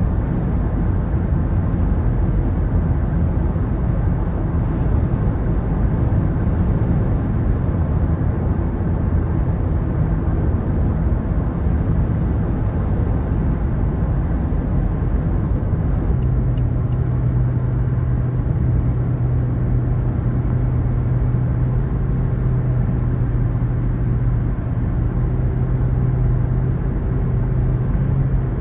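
Steady road rumble inside a car cruising on a highway, tyres and engine running evenly. About halfway through, a steady low hum comes in and holds to the end.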